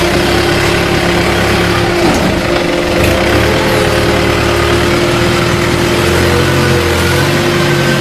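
Horizontal paper/cardboard baler running in production: a steady machine hum with one held tone, over a low rumble that shifts in pitch a couple of times as the conveyor feeds cardboard and the baler presses it.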